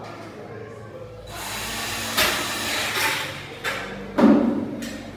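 Red cordless drill running for about two seconds as it bores into the top rail of a metal window frame. It is followed about four seconds in by a single loud knock as the drill is set down.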